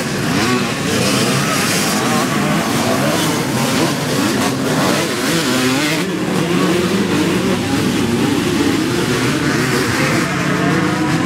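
Many vintage motocross bike engines racing together in a pack, revving, their pitches rising and falling over one another.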